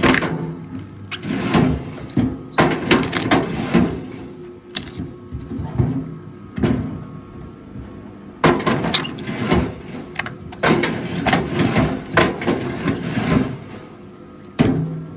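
Rail log splitter at work: its motor runs steadily under a string of irregular knocks, scrapes and clatter of wood being split and handled.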